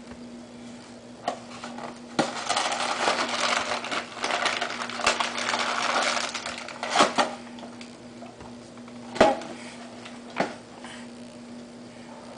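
Crinkling and rustling of cookies being handled and eaten, dense for a few seconds from about two seconds in, then a few separate sharp knocks, over a steady low hum.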